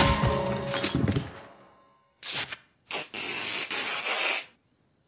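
A flowerpot striking a man's head at the start, with dramatic music ringing out. Then duct tape is pulled off the roll: a short rip, and a longer scraping rip of about a second and a half.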